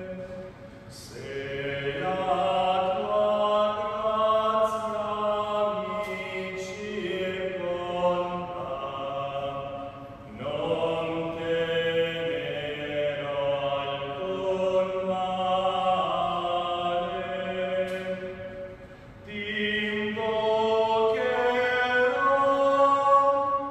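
Slow hymn or chant sung in long held notes during the communion part of a Catholic Mass. It runs in phrases of about nine seconds, each with a short break for breath.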